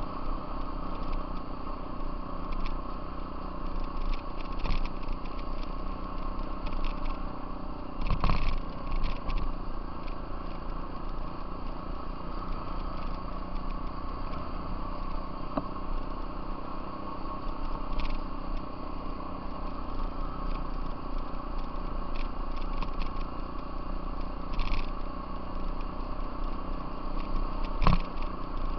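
Off-road vehicle engine running at a steady speed over a gravel trail, with a steady drone and tyre crunch. Scattered knocks and rattles come from bumps, the loudest about eight seconds in and near the end.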